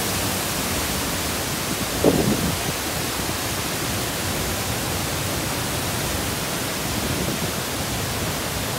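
Steady rushing of a waterfall plunging into a rocky stream, an even roar of falling water. A brief louder sound cuts in about two seconds in.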